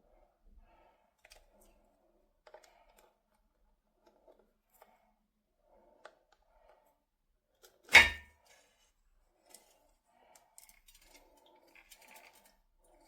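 Faint handling noises, small scattered clicks and rustles, with one sharp, loud knock about eight seconds in.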